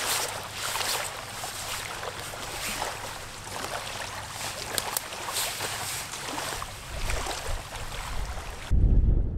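Outdoor shoreline ambience: a steady hiss of wind and lapping water with small crackles. Near the end it changes suddenly to a low rumble of wind buffeting the microphone.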